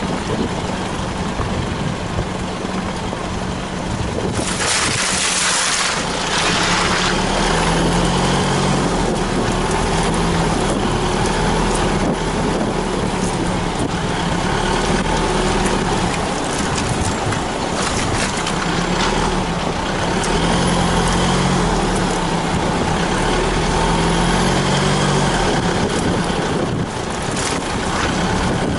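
Isuzu 4WD's engine running as it drives a muddy off-road track, its revs rising and falling. About four seconds in comes a loud rush of noise lasting about two seconds.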